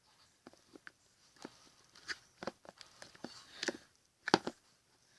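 Homemade borax-and-glue slime being squished and pulled in the hands, giving irregular sticky clicks and pops.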